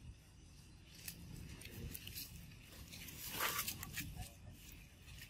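Macaques scuffling on dry leaves and gravel: scattered rustles, crackles and crunches, loudest about three and a half seconds in as they grapple.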